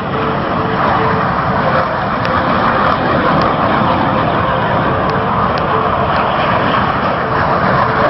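Aircraft engine noise from a plane making a pass over the airfield: a loud, steady rush.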